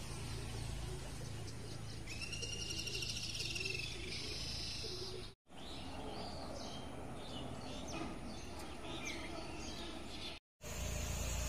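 Birds calling outdoors over a steady low rumble. A long arching call comes about two seconds in, then a higher held note, then several short chirps, broken twice by a split-second drop-out to silence.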